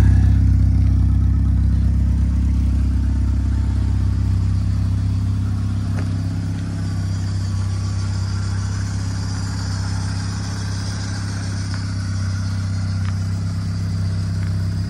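1979 Fiat 124 Spider 2000's twin-cam four-cylinder, on a Weber 34ADF carburettor and an ANSA muffler, idling steadily. The idle grows a little fainter over the first several seconds as the exhaust gets farther away.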